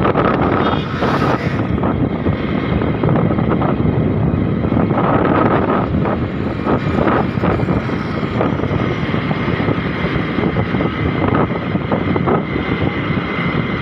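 Motorcycle running steadily at cruising speed on the road, with wind rushing over the microphone.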